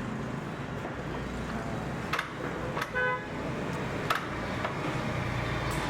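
Steady rumble of road traffic, with a short vehicle-horn toot about three seconds in. A few sharp clicks sound at scattered moments.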